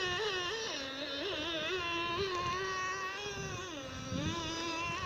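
The 0.28 nitro glow engine of a handmade wooden RC boat running at high revs, a high buzzing whine heard from a distance. Its pitch wavers up and down as the throttle and load change, dipping twice before it settles steadier near the end.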